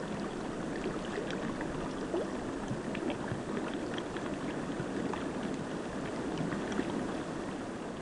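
A shallow, rocky river flowing: a steady rush of water with many small splashes and gurgles.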